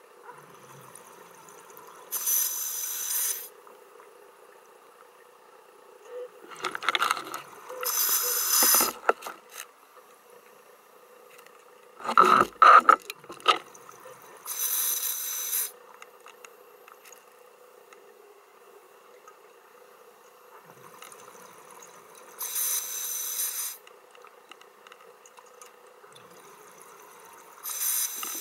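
Scuba diver breathing through a regulator underwater: bursts of exhaled bubbles rushing out about every five to six seconds, with a softer regulator hiss before some of them. A faint steady hum runs underneath, and a cluster of loud sharp knocks comes about twelve seconds in.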